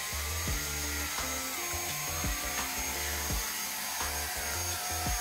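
Samono SW-MPG400 handheld mite vacuum running on a mattress with a steady motor whine, under background music with a moving bass line.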